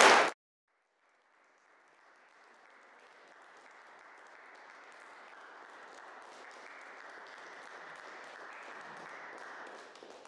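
A loud sound breaks off abruptly at the very start; then faint applause fades in, swells slowly and drops away near the end.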